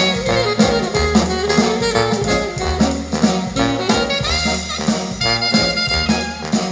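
Jazz with horns and a steady bass beat, played through a pair of Bose 101 MMG bookshelf speakers in a playback test.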